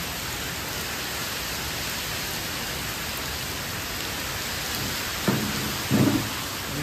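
Heavy rain pouring down in a steady, dense hiss on foliage and paving. Near the end, two short louder sounds about a second apart rise above it.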